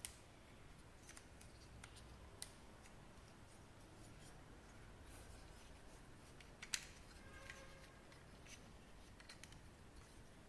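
A few sharp clicks and light taps from hands handling a plastic action figure and its packaging, the loudest about two-thirds of the way through, against near silence.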